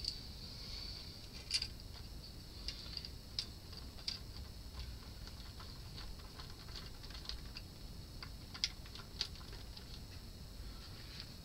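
Scattered light clicks and small scrapes of a screwdriver and fingers working the mounting screws of TO-3 output transistors on a metal heatsink, irregular, over a steady faint high hiss.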